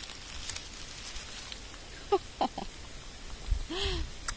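A woman's short, wordless vocal sounds: a few quick squeaks about two seconds in, then a rising-and-falling 'mmm', followed near the end by a kissing smack as a small mushroom is held to her lips.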